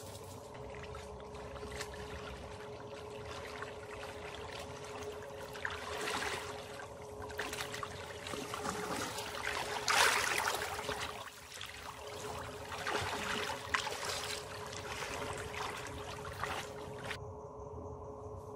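Water sloshing and splashing as people wade through a stream, in uneven swells that are loudest about ten seconds in, over a faint steady hum; the splashing drops away near the end.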